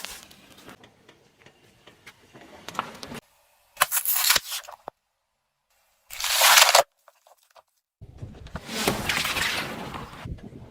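Car tyre rolling over and crushing objects in short cut-together clips. Low crackling comes first, then two short sharp cracking bursts about four and six seconds in, then a longer crunching from about eight seconds on.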